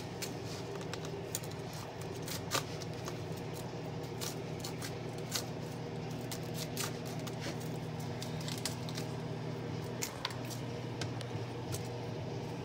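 Kitchen knife cutting florets off a raw cauliflower head on a plastic cutting board: scattered soft crunches and light taps, over a steady low hum.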